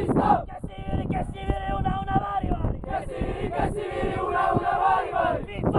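Football team's players chanting their victory cry together in a huddle, many male voices in unison holding drawn-out notes in short phrases.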